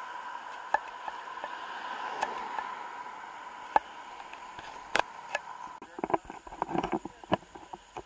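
Insects droning steadily, with scattered sharp clicks and a quick run of knocks near the end.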